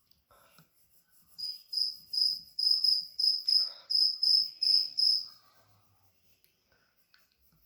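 A cricket chirping in short, high, evenly repeated pulses, about three a second, starting over a second in and stopping after about four seconds. Faint pencil scratching on paper lies beneath it.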